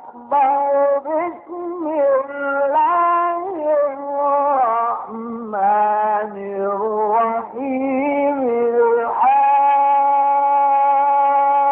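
A male voice chants melodic Quran recitation (tilawa) in ornamented, bending phrases. About nine seconds in it settles into a long, steady held note.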